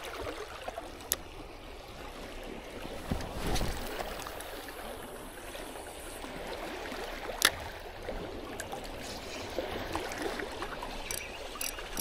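Seawater lapping and trickling among the stones of a rock seawall, a steady watery wash. A couple of sharp clicks: a small one about a second in and a louder one about seven seconds in.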